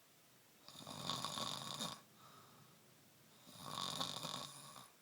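Snoring while asleep: two long snores, each lasting a little over a second, about three seconds apart.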